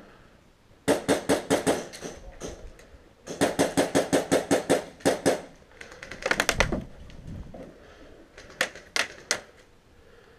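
HPA airsoft rifle (an Ares Amoeba AM-013 with a PolarStar Jack engine) firing: a burst of about a second, a longer burst of about two seconds, a short rapid cluster, then three single shots near the end.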